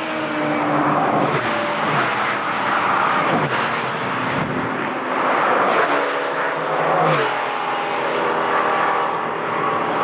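Several Porsche race cars pass in quick succession under power, their engines overlapping. Each car's note drops in pitch as it goes by.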